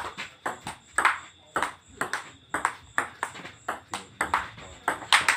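Table tennis rally: the ball clicks back and forth between paddles and the table in a quick, even rhythm of about four sharp clicks a second, the loudest a hard hit near the end.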